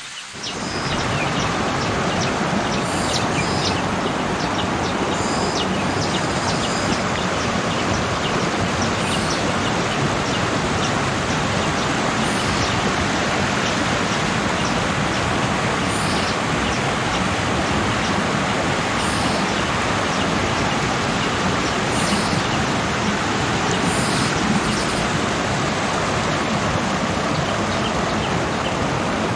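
Waterfall rushing as a dense, steady wash of noise that comes in about half a second in, with faint high chirps every few seconds above it.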